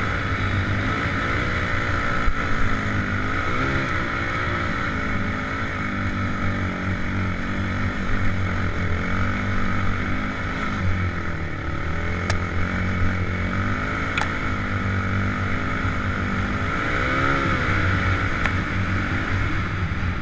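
Suzuki LT-Z400 quad's single-cylinder four-stroke engine running under load while it is ridden over snow, its pitch rising and dipping with the throttle. There are a couple of sharp clicks about halfway through.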